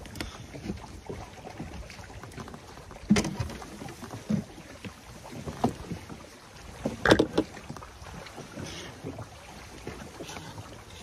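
Wind on the microphone over a low steady outdoor background, broken by a few irregular knocks and bumps, the two loudest about three and seven seconds in.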